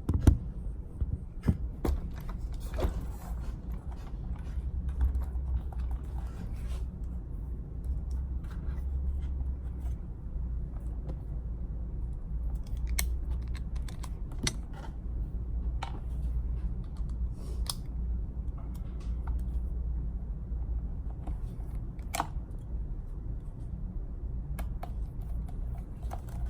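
Scattered small clicks and taps of tools and metal parts being handled while working on an RC truck's shocks and turnbuckles, over a steady low hum.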